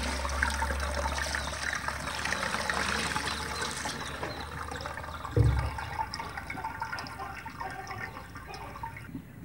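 Cold water pouring onto boiled macaroni in a perforated steel colander, splashing and draining through the holes. The stream is heaviest for the first few seconds, then tapers to a thinner trickle and drips. There is one dull thump about halfway through.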